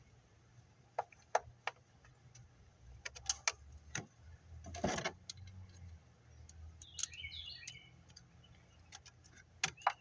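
Scattered light metallic clicks and clinks of hand tools on the engine's water outlet bolts, with a short noisy rush about five seconds in. A short bird chirp about seven seconds in, over a low steady hum.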